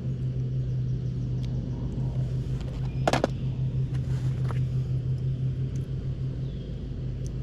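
A steady low mechanical hum with a rumble under it, like a motor or pump running. About three seconds in there is one brief, sharp higher sound.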